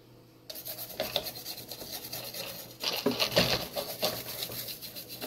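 Toothbrush dipped in cellulose thinner scrubbing the solder side of a circuit board, a rapid run of bristle strokes starting about half a second in and growing louder about three seconds in. It is washing the freshly soldered joints where the power supply's capacitors were replaced.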